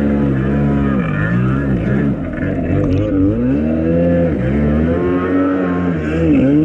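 Kawasaki X2's 650cc two-stroke engine breathing through a newly fitted waterbox exhaust, revving up and down again and again as the jet ski is ridden, the pitch rising and falling about once a second.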